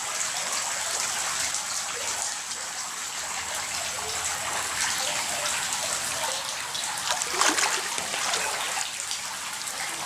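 Water raining down in countless drops from a rock overhang into a shallow pool: a steady hiss of small splashes on the water's surface, with a denser run of splashes about seven and a half seconds in.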